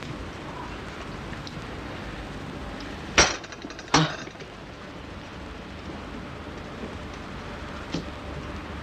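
Two sharp knocks about a second apart, the first with a short ringing clink, over a quiet steady hiss; a faint tap near the end.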